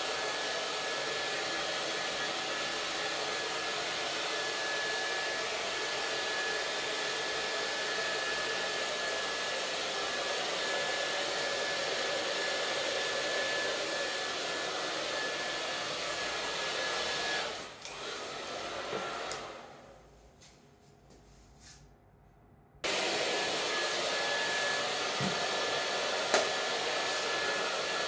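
Handheld hair dryer blowing steadily, a rush of air with a thin high whine. About two-thirds of the way through it dies away to near quiet, then comes back abruptly at full strength some five seconds later.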